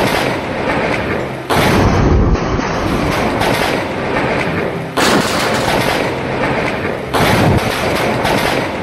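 Thunderclap from a nearby lightning strike: a sudden, very loud crack that fades over a second or two. It comes three times, about one and a half, five and seven seconds in, with the tail of another at the start.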